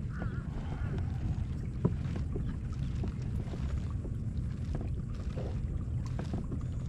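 Sounds of a Hobie Outback kayak on the water: a steady low wind rumble on the microphone, with scattered light knocks and clicks on the hull.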